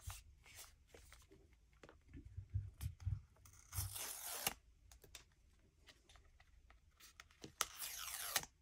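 Packaging of a new iPhone 14 Pro box being torn open and handled: faint clicks and rustles, with two longer tearing sounds, one about four seconds in and one near the end.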